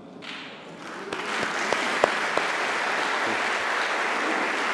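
Congregation applauding, swelling over the first second into steady clapping.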